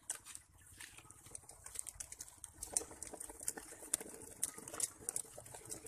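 Footsteps on dry grass and gravelly ground: a scatter of small, irregular clicks and scuffs.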